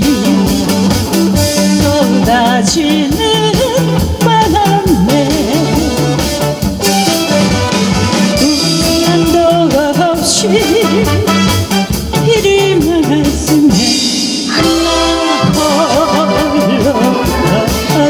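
A woman singing a Korean-language song into a handheld microphone over backing music with a steady beat.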